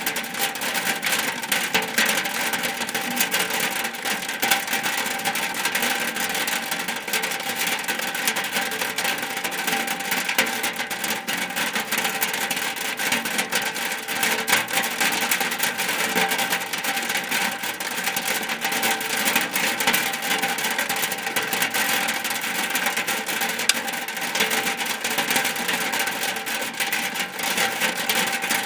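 Rain falling steadily on a shack roof: a dense, even patter of countless small drops.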